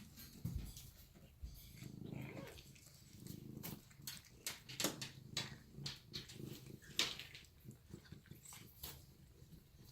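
Savannah cat growling low and continuously while eating, with sharp clicks from biting and chewing its food.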